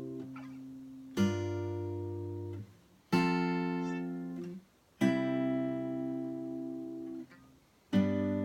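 Acoustic guitar with a capo playing a chord progression: four chords, each struck once and left to ring for about two seconds before the next.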